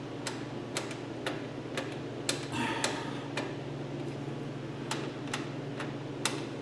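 A 1967 Mustang's rear drum brake self-adjuster clicking about twice a second as the adjuster lever ratchets the star wheel out one tooth at a time, spreading the brake shoes. A steady low hum sits behind the clicks.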